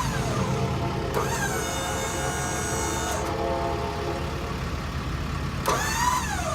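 A service-truck crane's drive motor whines as the boom swings from side to side. It rises in about a second in, runs for about two seconds and stops, then whines up and down again briefly near the end. Under it the truck's 6.7 Cummins diesel idles steadily.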